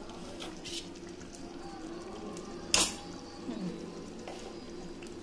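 Wooden spatula stirring yogurt into thick spinach gravy in a metal pan, with light clicks and one sharp knock on the pan a little under three seconds in, over a steady low hum.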